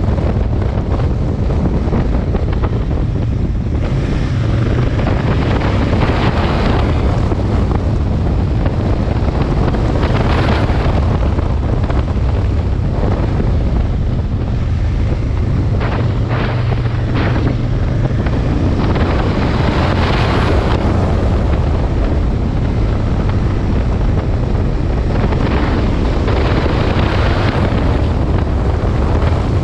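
Heavy wind buffeting on the microphone of a moving Aprilia Tuono 1000 motorcycle, with its V-twin engine droning underneath. The rush of wind swells and eases several times.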